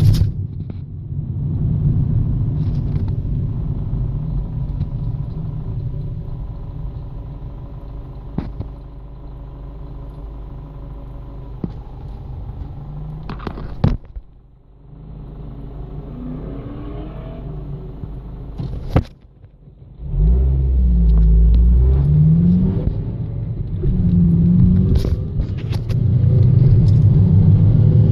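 2007 Honda Civic Si's 2.0-litre four-cylinder engine running with a rattle, then revved a few times in the latter part, where the owner says the rattle turns into a grinding. The noise has grown worse over two weeks, and the owner suspects the transmission or a belt without knowing the cause.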